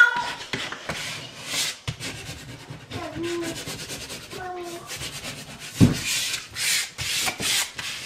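Hands rubbing and smoothing the transfer paper of a large vinyl wall decal against a painted wall, in repeated bursts of rustling strokes. There is a single thump about six seconds in.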